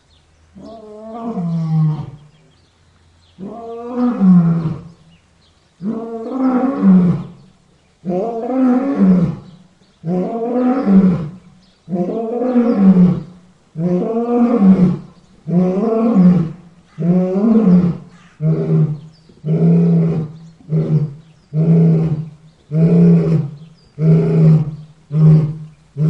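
A lion roaring in a bout: a series of deep calls, the first few long and swelling, then shorter and quicker, coming about one a second by the end.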